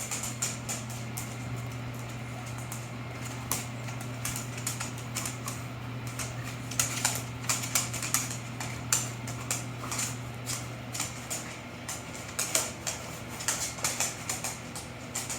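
Irregular light clicking and tapping, denser in the second half, over a steady low hum that fades out about two-thirds of the way through.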